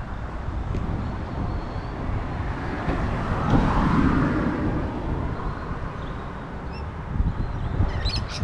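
A car passes by, swelling and fading about three to five seconds in, over a steady low rumble of traffic and wind.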